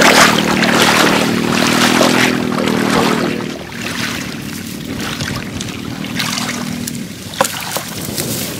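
Floodwater splashing and sloshing around a person wading through a flooded rice paddy, loudest in the first three seconds, over a steady motor drone that stops about seven seconds in. A couple of small knocks near the end.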